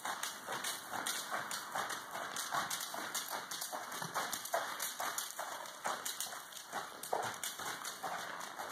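A horse's hoofbeats in a steady rhythm on soft dirt arena footing as it is ridden at a canter.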